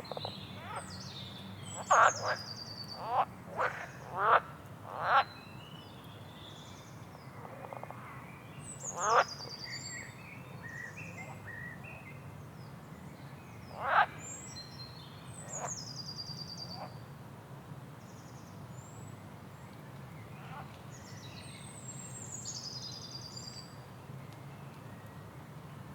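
Swamp frogs croaking and wild birds chirping. A run of loud, short frog croaks comes in the first few seconds, then single croaks about 9 and 14 seconds in, while high bird chirps and twitters go on throughout over a steady low background.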